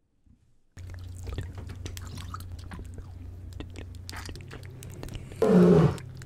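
Close-miked ASMR clicking and crackling, irregular and sharp, over a steady low hum. About five seconds in, a woman gives a loud, short vocal cry that falls in pitch.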